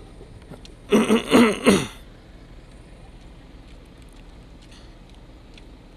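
A short, loud burst of a person's voice about a second in, lasting about a second with three quick peaks, over a low steady background.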